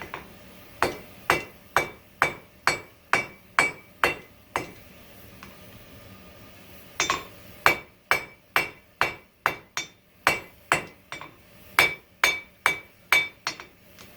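Hammer blows on hot coil-spring steel over an anvil, drawing the stock out lengthwise. Each strike has a short, bright ring: a run of about nine blows at roughly two a second, a pause of about two seconds, then a longer run of about fourteen.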